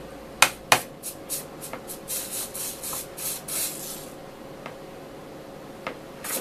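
Soldering iron tip being tinned and cleaned: two sharp clicks, then about three seconds of short hissing sizzles, with one more click and hiss near the end.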